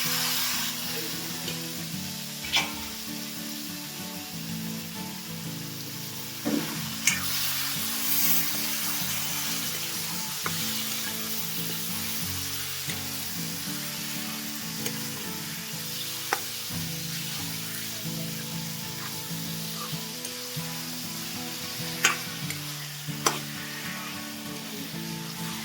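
Pork frying in hot oil in a pot, with a steady sizzle as it is stirred, and a few sharp knocks of the spoon against the pan.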